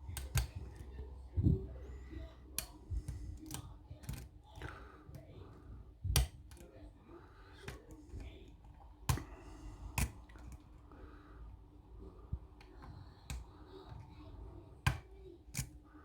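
Metal lock-picking tools clicking and tapping in a lock, irregular sharp clicks a second or so apart as the lock is reset and picked again.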